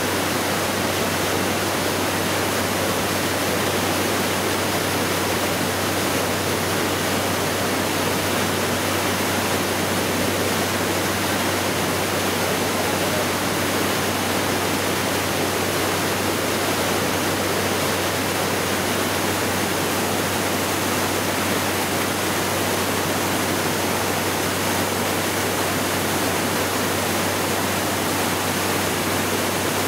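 Maria Cristina Falls: a loud, steady rush of falling and churning white water.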